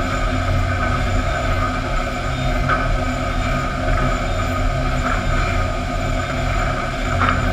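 Sawmill lumber line running steadily: the drone of chain conveyors and machinery carrying fence boards, with a few faint knocks along the way.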